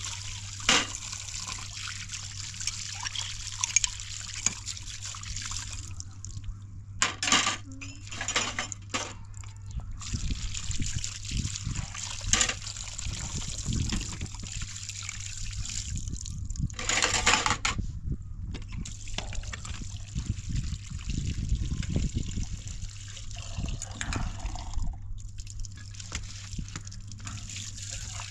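Water running and splashing, with a few short breaks where it stops, over a steady low hum.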